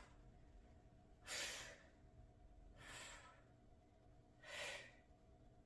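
A woman's breathing from exercise effort during seated band abductions: three short breaths about a second and a half apart, with a faint steady hum between them.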